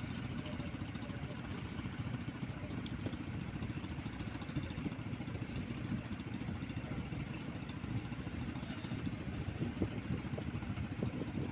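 Small fishing boat's engine running steadily, a continuous low, fast-pulsing drone.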